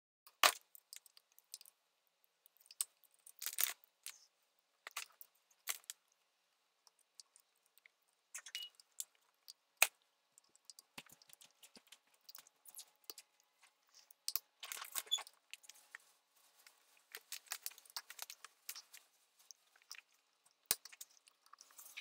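Scattered small clicks, taps and scrapes of hand tools and metal parts being handled while reassembling a Bafang BBS02 mid-drive motor, with one sharper click about ten seconds in.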